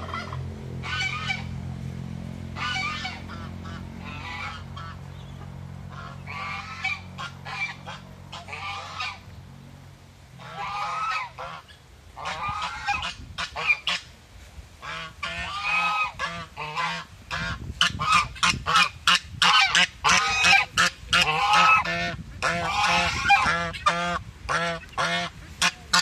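Domestic geese honking: a few scattered calls at first, then a loud, fast run of short honks from several birds through the second half. A low steady hum sits underneath early on and fades out about halfway through.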